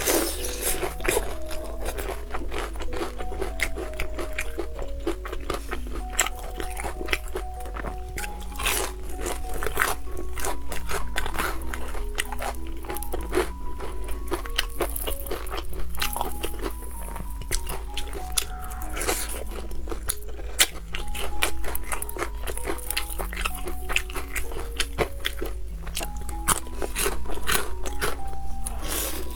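Crunchy bites and chewing into a fried chicken cutlet's crisp coating, many sharp crackles, over background music with a simple stepping melody.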